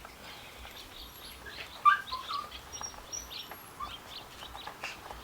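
Small birds chirping in short, repeated calls, over sharp clicks and knocks from a pipe wrench working a spin-on oil filter loose, with one loud clack about two seconds in.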